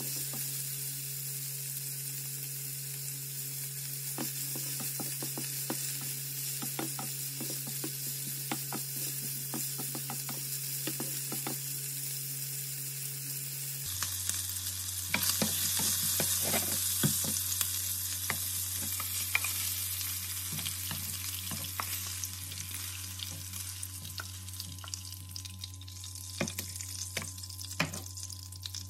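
Chicken pieces sizzling as they fry in oil in a frying pan, with a wooden spatula scraping and tapping against the pan as they are stirred. The sizzle gets louder a little past halfway.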